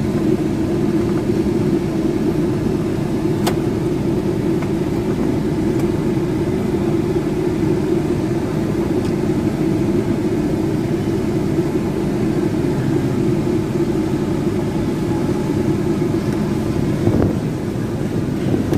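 Steady drone of a Chevrolet Optra running while parked, heard from inside its cabin, with engine and air-conditioning hum together. One sharp click comes about three and a half seconds in.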